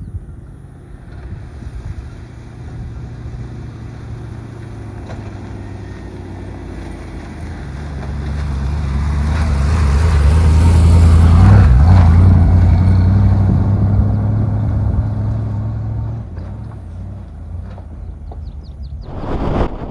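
Classic two-door Range Rover driving past on a dirt track: its engine grows louder as it approaches, is loudest about eleven seconds in, then fades as it moves away.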